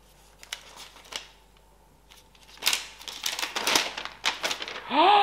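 Crinkling and rustling of the thin protective wrap as it is pulled off a new iMac keyboard, with light handling knocks, mostly in the second half. Near the end comes a short voice sound that rises and then falls in pitch.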